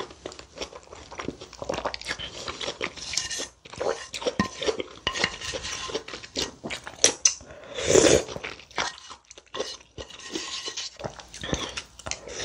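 Close-miked chewing and wet mouth sounds of a person eating kimchi stew with rice: many short crunches and smacks, with one louder mouth sound about eight seconds in.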